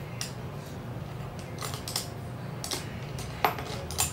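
Makeup brushes clicking and clattering against each other as one brush is picked out of the set, in irregular light clicks over a low steady hum.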